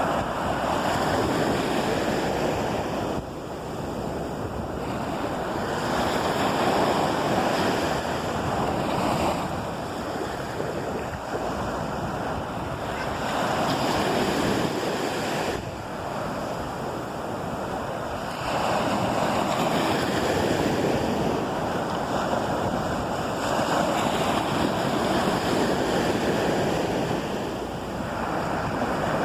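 Ocean surf breaking on the shore, the wash swelling and easing every few seconds, with wind on the microphone.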